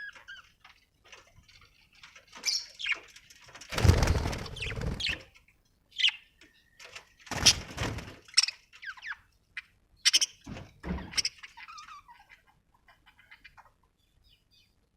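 Budgerigars chirping and chattering in short irregular bursts, with three louder thudding, rustling noises among them. It falls almost quiet for the last second or so.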